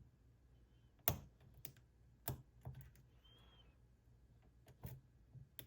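Small, irregular metallic clicks and taps of a pick and tension tool working the pins inside an ASSA 700 lock, about six clicks spread unevenly, the one about a second in the loudest, as the pins are worked toward a false set.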